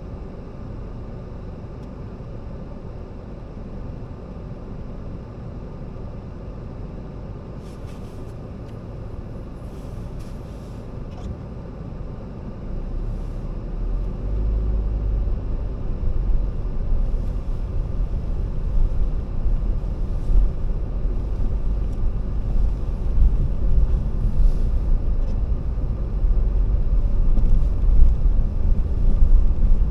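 Car driving, heard from inside the cabin: a steady low engine and road rumble that grows clearly louder and deeper from about halfway through.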